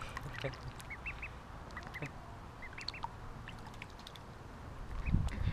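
Ducklings peeping as they swim: short, high chirps, often in twos and threes, over faint background hiss. A low rumble swells near the end.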